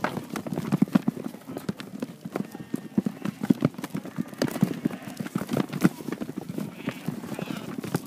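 Sheep trotting and running through a wooden chute on dirt: a quick, irregular patter of many hooves.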